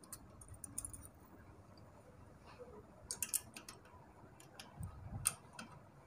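Scattered sharp metallic ticks and clicks of hand tools working the valve tappet adjusters on a Honda CG125 cylinder head while the valve clearance is set, loudest a little past three seconds and again around five seconds in, with a dull low thud near five seconds.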